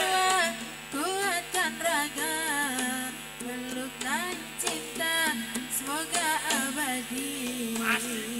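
Live jaranan music: a bending, ornamented melody line over steady held tones, punctuated by sharp drum strokes.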